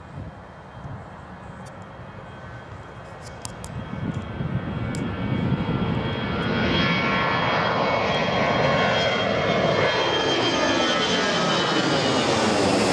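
Airbus A319 jet engines at takeoff thrust as the airliner climbs out and passes overhead: the engine noise swells over the first several seconds, then holds loud and steady with a high whine and a falling, sweeping phasing as the jet goes over.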